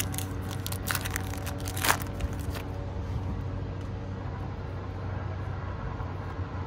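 Foil wrapper of a baseball card pack crinkling and tearing open in the hands, with a sharp crackle about two seconds in, over a steady low hum.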